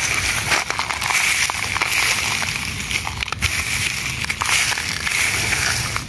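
Dry grass and leaf litter rustling and crackling as a hand pushes through it, over a steady hiss.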